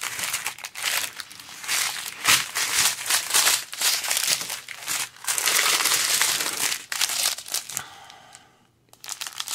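Small clear plastic bags of diamond-painting drills crinkling and rustling as they are handled. The rustle comes in irregular bursts, is loudest and most continuous about five to seven seconds in, and dies away near the end.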